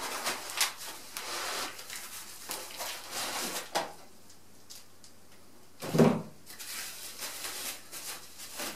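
Hand unpacking: plastic bag and cardboard packaging rustling and crinkling in short bursts. About six seconds in comes a single dull thump, the loudest sound, as a yellow-taped package, most likely the e-bike battery pack, is set down on the wooden floor.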